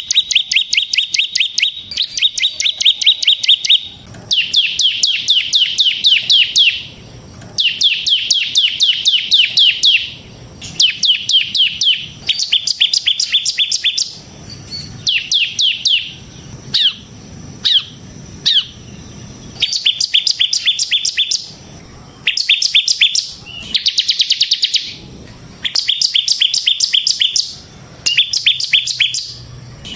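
Bar-winged prinia (ciblek) singing in its rapid drilling trill ("ngebren"): bursts of fast, evenly repeated high notes, each lasting one to three seconds, with short pauses between them.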